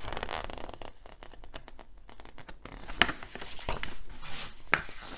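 Large paper art prints and poster sheets being handled: rustling and sliding of paper, then three sharp paper snaps in the second half, the first the loudest.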